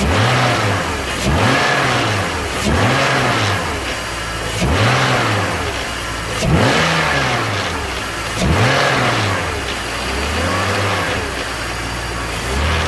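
BMW M54 3.0 L straight-six engine revved in repeated short throttle blips, roughly every two seconds, each rising and falling back toward idle. It is run to show a rattle that began, and grew louder, after the VANOS piston seals were replaced.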